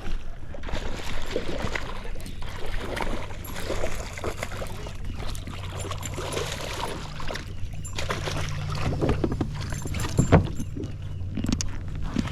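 A hooked bass being fought and brought to a small fishing boat: scattered splashing, clicks and knocks over a steady low motor hum, with one sharp knock against the boat about ten seconds in.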